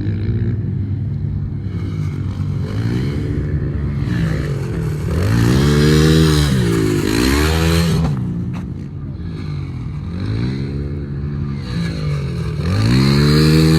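Small pit bike engine revving up and back down, about four times over, with a sharp click a little past the middle.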